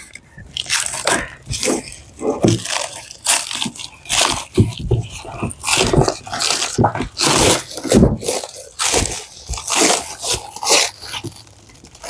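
Packaging of a keyboard box being torn open by hand: repeated irregular crunching, scraping and tearing of wrap and cardboard.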